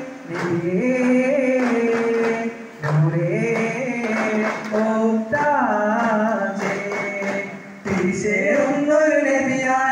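Male voices singing a Malayalam Mappila devotional song in praise of the Prophet (a madh song), held melodic lines with no clear words, with a few daff frame-drum strikes.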